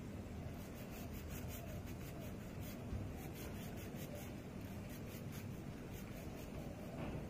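Emery board nail file rubbed back and forth across a fingernail: faint scratching strokes, a few a second, that stop about six seconds in.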